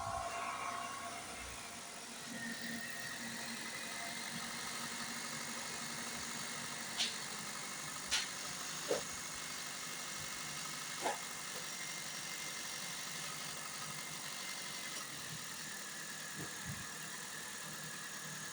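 Car engine idling steadily while an internal engine-flush cleaner circulates through an engine described as heavily carbonised, with a faint high whine and a few sharp clicks around the middle.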